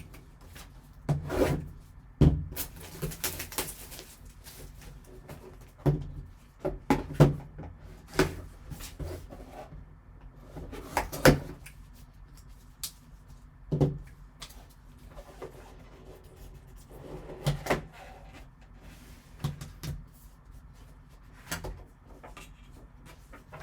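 A sealed trading-card box being opened and handled by hand: scattered taps, clicks and knocks of cardboard and plastic packaging, with a stretch of rustling about three seconds in.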